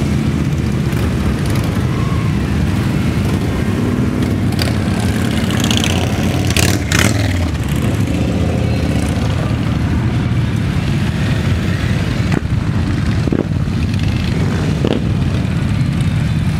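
Many cruiser-style motorcycles riding slowly past one after another, their engines running with a steady low sound. A louder swell of engine noise comes about six to seven seconds in, and a few short sharp sounds near the end.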